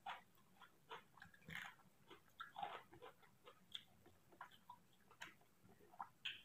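Faint, irregular wet smacks and clicks of a person chewing a mouthful of rice and curry.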